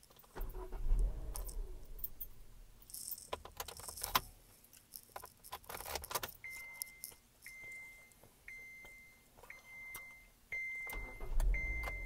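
Car keys jangling and clicking, then a 2015 Kia Forte's dashboard warning chime beeping six times, about once a second, each beep a little louder than the last.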